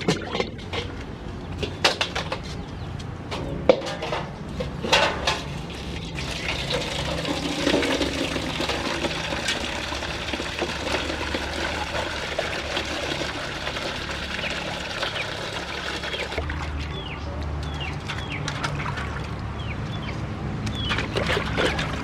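Creek water splashing and sloshing: several sharp splashes in the first six seconds, then a steady pouring, rushing wash of water. Short high chirps come in over it near the end.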